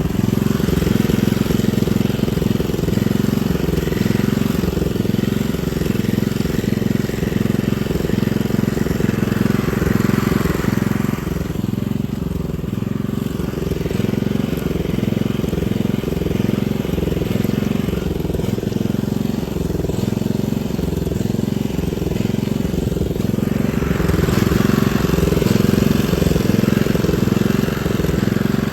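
Small engine of an Amenbo-go paddy weeding machine running steadily under load while weeding a rice paddy, with a slow regular pulsing in its note.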